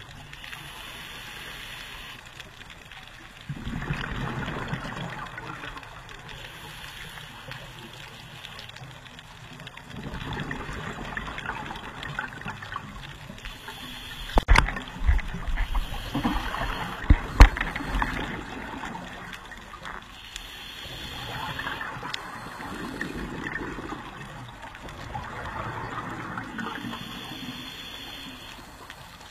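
Scuba diver breathing through a regulator underwater: a short hiss on each inhale alternating with bubbling on each exhale, about every six seconds. A few sharp clicks and knocks about halfway through are the loudest sounds.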